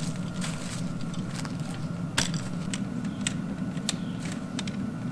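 Steady low mechanical hum with a faint steady whine above it, and a scattered run of sharp clicks and clinks of metal gear being handled, the loudest about two seconds in.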